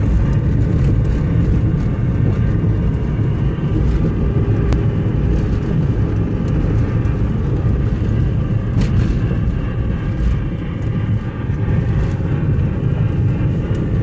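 Steady low rumble of a moving car's engine and tyres on the road, heard from inside the cabin, with a couple of faint clicks.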